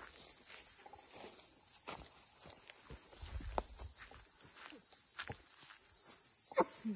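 Steady, high-pitched insect chorus, with scattered footsteps and rustles in grass.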